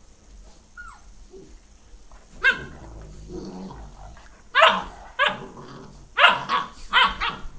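Newfoundland dogs barking and growling in rough play: about six short, sharp barks in quick clusters starting a couple of seconds in, with growling between them.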